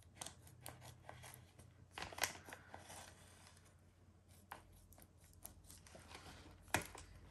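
Scissors snipping across the sealed top of a plastic zip-lock bag, quiet small cuts with the plastic crinkling; a couple of sharper snips stand out, one about two seconds in and one near the end.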